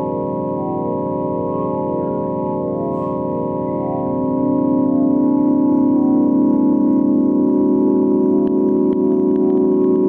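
Electronic space-sound drone: a sustained, organ-like chord of steady tones with a slow pulsing beat, swelling louder about four seconds in.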